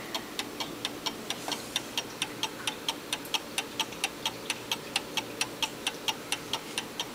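Howard Miller eight-day wind pendulum wall clock's brass mechanical movement ticking, a fast, even run of sharp ticks, several a second: the spring-driven movement running with no battery or cord.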